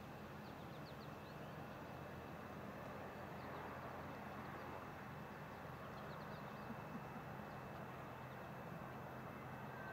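Faint, steady waterside ambience: a low steady hum and an even wash of background noise, with a few short, high bird chirps in small clusters, about half a second in, around three and a half seconds, and around six seconds.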